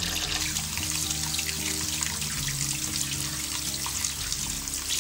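A thin stream of water pouring over boiled noodles in a stainless mesh strainer as they are rinsed, a steady trickling hiss. Background music with held low notes plays under it.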